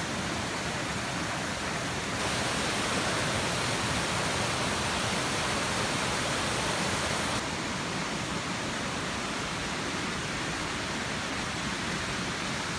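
Rushing water of Glen Ellis Falls and the cascades around it, a steady rush with the river running high and powerful after heavy overnight rain. It gets louder about two seconds in and softer again about halfway through.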